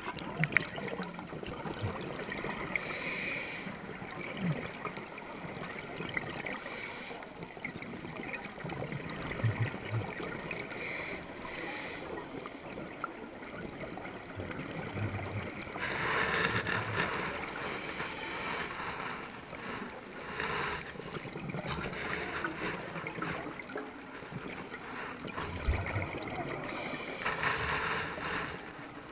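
Underwater sound of a scuba diver breathing through a regulator: a burst of exhaled bubbles every few seconds, each lasting about a second, over a steady faint crackle.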